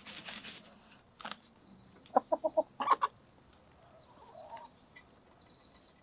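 Domestic hens clucking: a quick run of four or five short clucks about two seconds in, one more just after, and a softer cluck later. A brief scratchy noise at the start.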